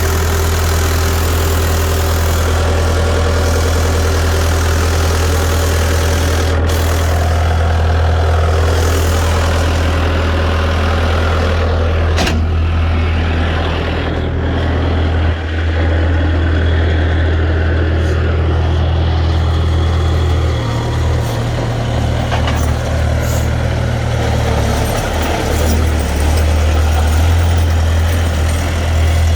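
Bobcat T300 skid steer's Kubota diesel engine running steadily. Its low engine note wavers in the last several seconds, and there are a couple of sharp clacks.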